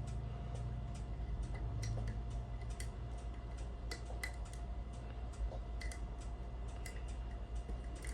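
Small irregular metal clicks of homemade lever picks working the levers inside a five-lever mortise lock as it is being picked, over a steady low hum.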